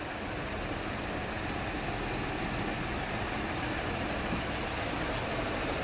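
Steady, even background rushing noise with no distinct events, growing slightly louder over the first couple of seconds.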